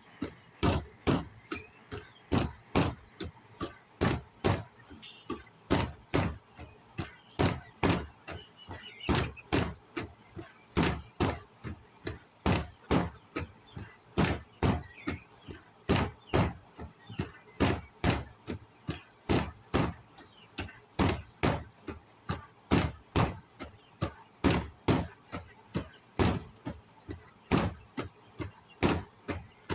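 A steady run of sharp knocks or thuds, a little over two a second and evenly paced, kept up without a break.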